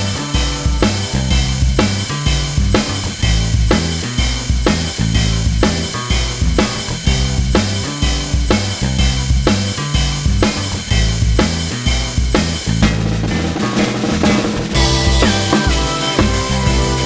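Background music with a steady drum-kit beat, bass drum and snare; the drums drop out briefly near the end before the beat comes back.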